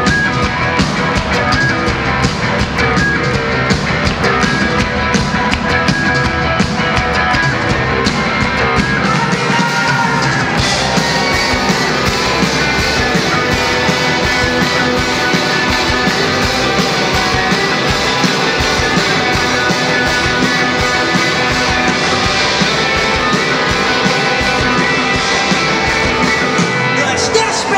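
Rock band playing live, electric guitars over a drum kit, heard through the hall's amplification. The sound grows brighter and fuller about ten seconds in.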